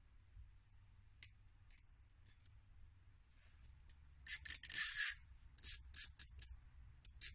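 Collapsible wire fire grate being unfolded: thin metal rods and wires clinking and scraping against each other, with light ticks at first, a longer rattling scrape about four seconds in, then several short rattles.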